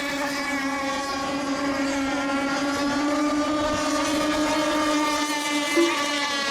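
Radio-controlled racing boats' small engines running flat out during a race, a steady high-pitched engine drone.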